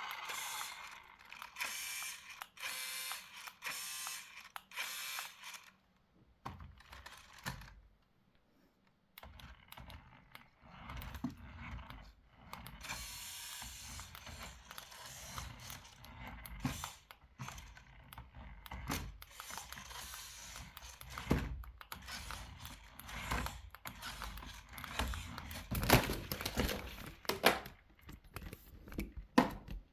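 Small motor and plastic gears of a toy RC quad whirring in short runs, then clicking and clattering as the toy's plastic parts are handled.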